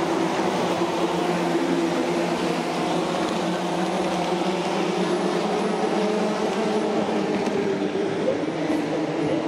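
A pack of GT500 and DTM race cars, two-litre turbocharged four-cylinder engines, droning steadily as the field rolls past slowly in two-by-two formation.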